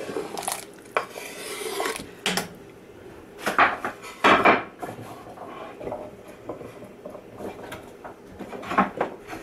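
Wooden cutting board and utensils knocking and scraping against a stainless steel pot as chopped potatoes are slid off into the broth: light knocks, a scrape between about one and two seconds in, then two louder clatters around the middle.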